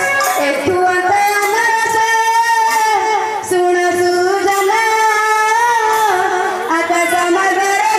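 Music: a voice sings a sustained, wavering melody over instrumental accompaniment.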